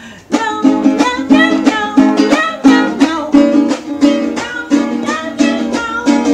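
Small acoustic guitar-type string instrument strummed in a quick, steady rhythm.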